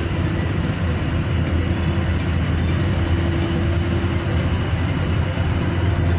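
Steady low mechanical rumble with a faint hum that fades in and out.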